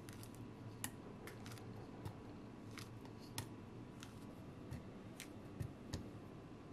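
About a dozen irregular soft clicks and taps as a peeled banana is broken by hand into chunks that drop into a clear plastic chopper bowl, over a faint steady hum.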